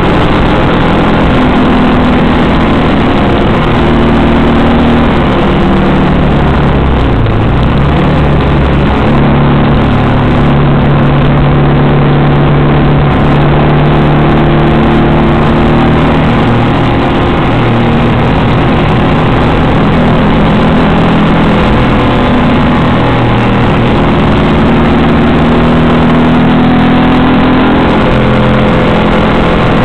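Alfa Romeo Arna's flat-four boxer engine heard from inside the cabin while lapping a race track, loud throughout, its pitch climbing and falling with the revs through gear changes and braking.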